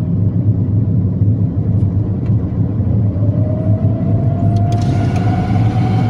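Steady low rumble of engine and road noise inside a moving car. About halfway through, a thin pitched whine comes in, rising slowly and then holding.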